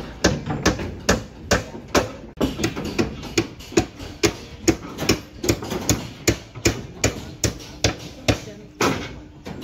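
Hammer striking steel formwork, a steady run of sharp metallic blows at about two to three a second.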